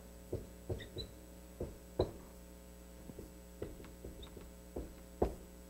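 Dry-erase marker writing on a whiteboard: irregular short taps and a few brief high squeaks as the strokes go down, over a steady electrical hum.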